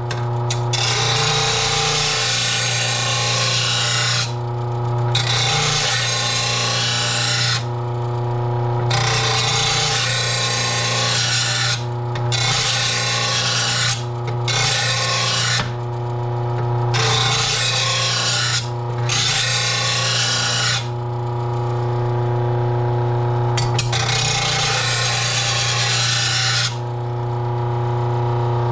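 An electric grinder running steadily while a steel lawn mower blade is sharpened on its wheel. The harsh grinding comes in passes of one to a few seconds, broken by short pauses about eight times as the blade is lifted off and pressed back on.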